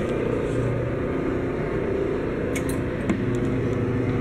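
Pressed-coin machine's electric motor running steadily, driving the gears, chain and rollers that flatten and emboss a penny, with a single click about three seconds in.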